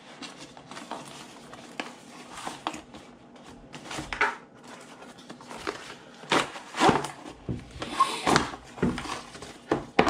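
A power strip being unboxed: its cardboard box handled and tipped, and the strip slid out and set down on a wooden table, making irregular knocks, scrapes and rustles. The knocks come more often and louder in the second half.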